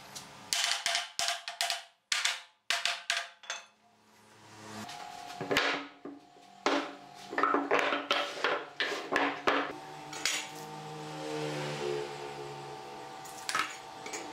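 Workshop handling noises. First a quick run of sharp clicks and clacks as steel pipe clamps are worked on a glued-up wooden panel. After a short pause come a series of knocks as thick wooden boards are moved and set down on a wooden workbench.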